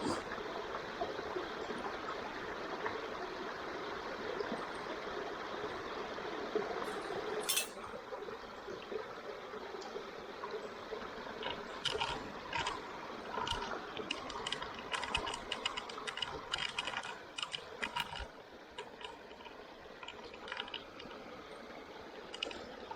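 Steady rush of running water, with a scatter of sharp clicks and snaps about halfway through.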